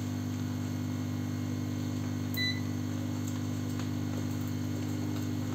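A steady low electrical hum, with one short high beep about two and a half seconds in, typical of a digital multimeter's continuity buzzer as the probes touch the keypad's contacts.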